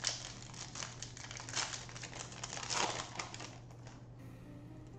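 Foil wrapper of a Panini Prizm trading-card pack being torn open and crinkled in the hands. It comes as a run of crackly rustles for about three and a half seconds, loudest twice, then quiets as the cards come out.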